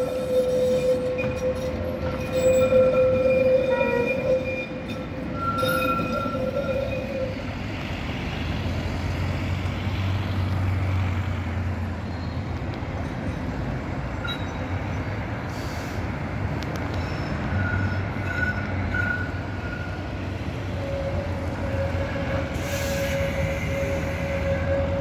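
Tram wheels squealing on the rails for the first several seconds, then steady street noise of passing road traffic with a low rumble. About three-quarters of the way through a steady high tone returns as an articulated tram rolls past.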